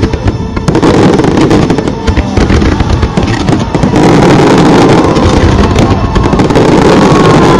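Aerial fireworks going off in a dense, rapid barrage, many bangs overlapping with no gaps, loud enough to run near the recording's maximum level.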